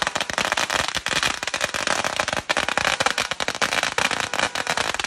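A long string of firecrackers going off: a continuous, rapid rattle of sharp bangs, many each second.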